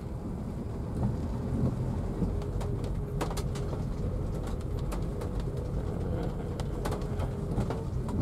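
Rain pattering on a car's roof and windshield, heard from inside the cabin: scattered sharp drop ticks over the steady low rumble of the engine and tyres as the car drives slowly.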